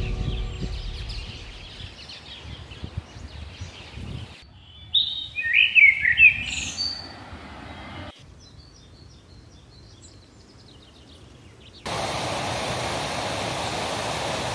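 Birds singing and chirping over soft outdoor ambience, with one bird singing loudly in gliding high notes for about two seconds near the middle. Soft music fades out at the start, and near the end the birdsong gives way to a steady rushing noise.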